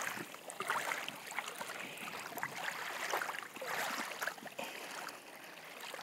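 Small waves lapping up a sandy shore and draining back, a rippling wash full of small crackles that rises and falls in swells.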